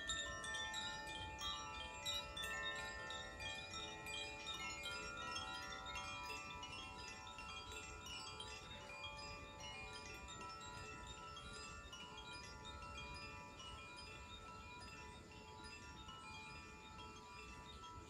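Koshi chimes, bamboo-tube wind chimes swayed by hand so the clapper inside strikes the tuned metal rods, giving many overlapping ringing notes. The tinkling is busiest at first, then thins out and slowly fades.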